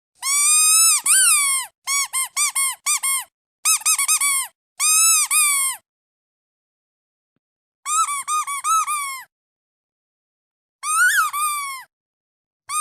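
Squeaky duck toy being squeezed in bursts: a long squeak, a quick run of about five short squeaks, then more short runs and single long squeaks with silent gaps of one to two seconds between them.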